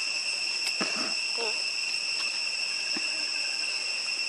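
Steady high-pitched drone of insects, held on a few even tones, with a few brief faint sounds about a second in and again near three seconds in.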